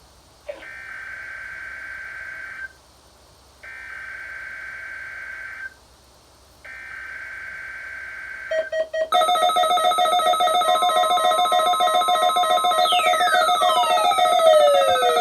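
Emergency Alert System SAME header: three screechy digital data bursts of about two seconds each, a second apart, announcing a Required Weekly Test. About nine seconds in, a loud buzzy alert tone with several pitches at once starts. Near the end, tones sliding down in pitch join it.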